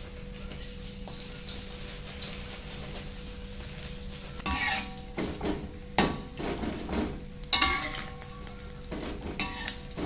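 Small steamed fish frying in oil in a metal wok over a low flame, with a steady sizzle. From about halfway, a metal spatula scrapes and clanks against the wok several times as the fish is turned.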